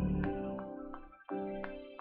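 Piano chords played back from a programmed pattern in a short rhythm: a held chord that drops away about a second in, then a fresh chord struck a moment later, with short higher notes plinking over them.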